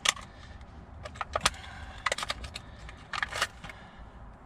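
Sharp metallic clicks and clinks in short clusters, from a hand tool working a replacement bolt into the drive shaft.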